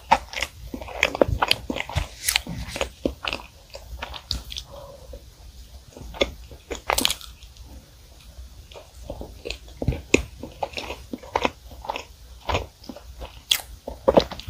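Close-miked eating of chocolate sponge cake with cream and strawberries: wet chewing with many sharp mouth clicks and smacks at an irregular pace, with a fork cutting into the cake.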